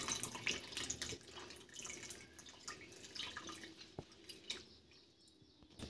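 Thin liquid pouring through a mesh strainer into a steel pot of curry, trickling at first and thinning to scattered drips. There is one sharp tick about four seconds in.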